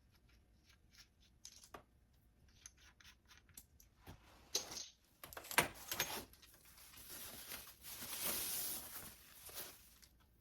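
Packaging being handled: small ticks and taps at first, then louder rustling and crinkling that builds in the second half.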